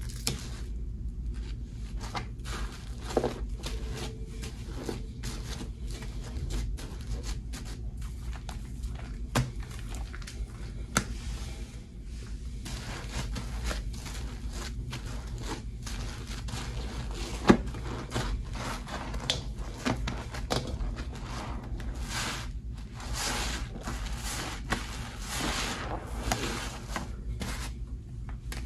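Soap-soaked sponges squeezed by hand in a stainless steel bowl of thick soapy lather: wet squelching and crackling foam with many small sharp squishes, getting denser about two-thirds of the way in. A low steady hum lies underneath.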